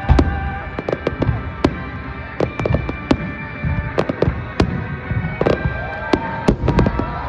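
Fireworks display: a dense run of sharp bangs and crackles, several a second, with some louder than others.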